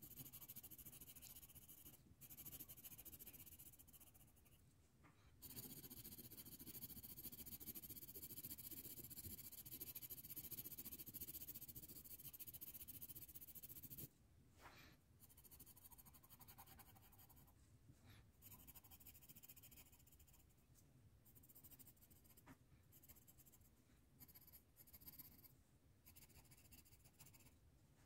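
Faint scratching of a coloured pencil shading on paper in repeated strokes. The level drops suddenly about halfway through.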